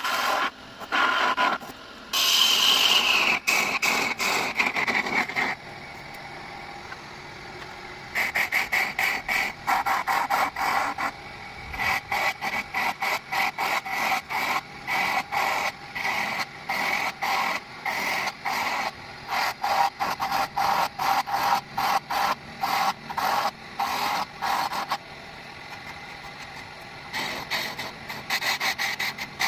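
Wood being rubbed or rasped in quick repeated strokes, about three a second, in bouts with a pause of a few seconds. A steady whine runs under the strokes, and a whine falls in pitch about two seconds in.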